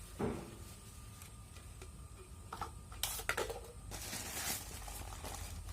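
Soft clicks and light clatter of items being handled, with a few sharper knocks about three seconds in.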